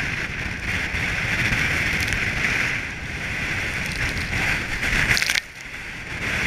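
Strong wind buffeting the microphone over rushing, sloshing water on a sailing boat in a storm. The roar drops abruptly about five seconds in, then comes back a second later.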